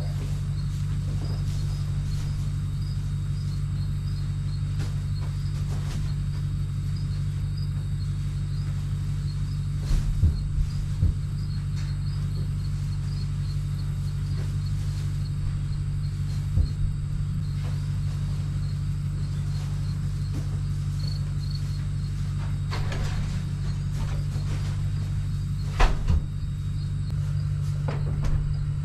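A vehicle engine idles steadily, with a few scattered knocks and thumps. Insects chirp faintly in a rapid, high-pitched rhythm.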